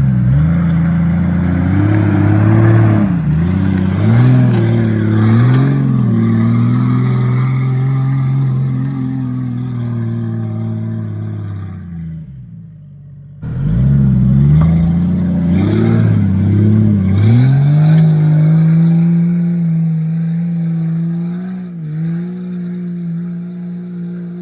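Jeep engine revving up and down hard under heavy load as it churns through deep mud. There is a short gap near the middle, then it revs again and holds high revs.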